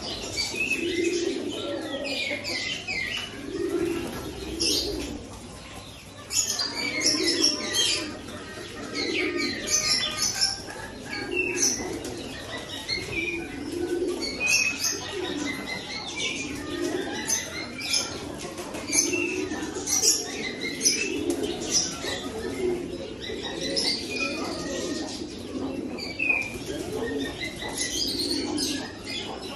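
Caged pigeons cooing over and over in low, rounded calls, mixed with many short high chirps from other birds and occasional fluttering of wings.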